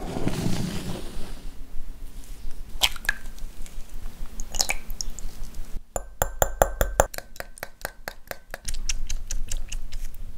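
A small metal wire whisk beats an egg with water in a glass bowl, clinking against the glass about six times a second for a couple of seconds. It is preceded by two sharp clicks a couple of seconds apart, and followed near the end by softer wet stirring of the beaten egg.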